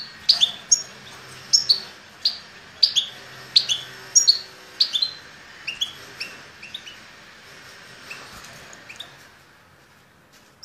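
Caged songbird singing a run of short, high, downward-sliding chirps, repeated about twice a second, loud at first and growing fainter and sparser in the second half.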